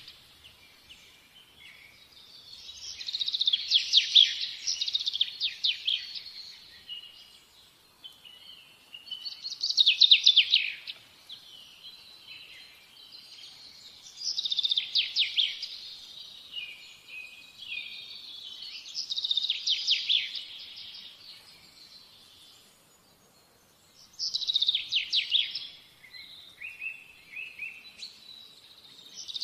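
A songbird singing: short, high phrases of rapid trilled notes, repeated about every five seconds.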